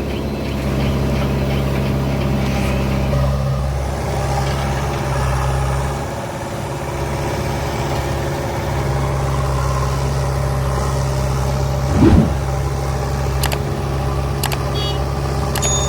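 Diesel engine of a tractor-type machine running steadily, its note dipping briefly about six seconds in, with one short clunk near the twelve-second mark.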